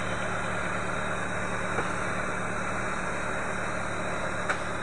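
A Renault Mégane's front steering being turned while the car stands still, over a steady low hum from the running car. Two short knocks come through it, a faint one about two seconds in and a louder one near the end. This is the clunk the owner gets when turning the wheel to full lock, mostly to the right, and its cause is still unknown to him.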